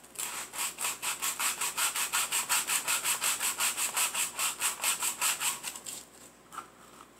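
Folded sandpaper rubbed quickly back and forth by hand on a small piece of wood, about six scratchy strokes a second, stopping about six seconds in.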